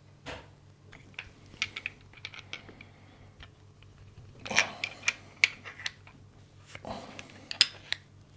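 Metal saildrive gear-shaft and bearing-housing parts clicking and clinking as they are handled and pushed together by hand, with two louder bursts of knocks and scrapes about four and a half and seven seconds in. A faint steady low hum runs underneath.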